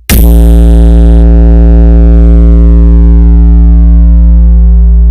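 Electronic speaker-test tone played very loud: a steady deep bass tone with a stack of overtones above it, starting abruptly with a click just after the start. The highest overtones fade away over the first few seconds while the bass holds.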